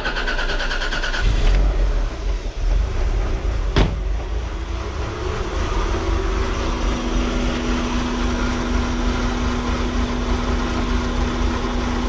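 Toyota Celica engine cranked by its starter motor for about a second, then catching and running on, settling toward idle, during a battery cranking test. A single sharp click about four seconds in.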